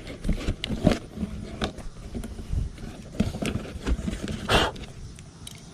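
A cardboard box being handled and its flaps opened: scattered scrapes and knocks of the cardboard, with a short louder rustle about four and a half seconds in.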